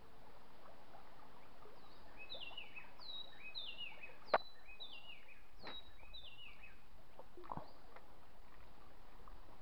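A bird singing several descending runs of short falling notes over a steady outdoor hiss, with two sharp clicks about four and five and a half seconds in.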